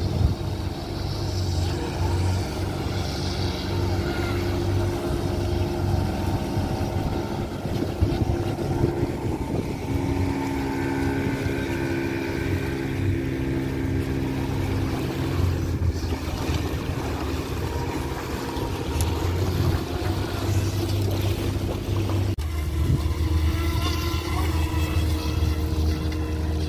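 Atomic Barbwire radio-controlled speedboat with a 3S LiPo brushless motor running on the water, its whine wavering in pitch, over a steady low engine drone that shifts abruptly about 22 seconds in.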